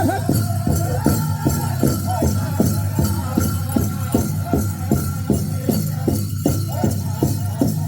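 Powwow drum group's big drum beaten in a steady, even beat of about two and a half strokes a second as the grand entry song is brought to a close, with the metal jingles of dancers' regalia shaking along.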